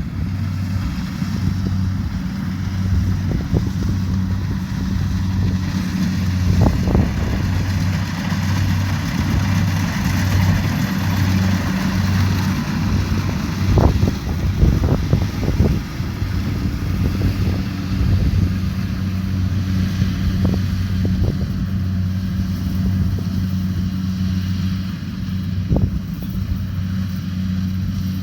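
Kubota DC70 Pro combine harvester's diesel engine running at a steady, even drone, with a hiss of machinery over it and a few sharp knocks now and then.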